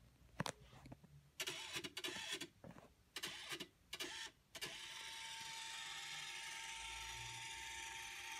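Canon flatbed scanner's carriage motor running a colour scan: a few short stop-start whirs, then from about five seconds in a steady whir with a thin constant whine as the scan head travels.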